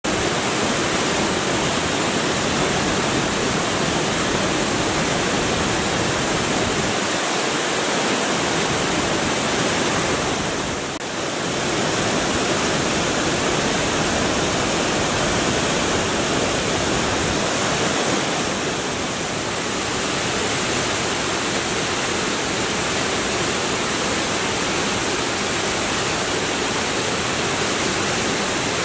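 Elabana Falls, a rainforest waterfall and its cascades, running full after heavy rain: a steady rush of falling and tumbling water that dips briefly twice.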